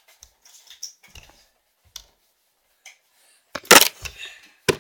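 Scattered small clicks and rustling, then a sharp loud snap about three and a half seconds in and a second short knock near the end.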